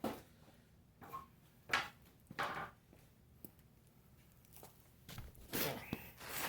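Ceiling fan parts and packaging being handled in a cardboard box: a series of short scrapes and rustles, with a longer, busier stretch of handling near the end.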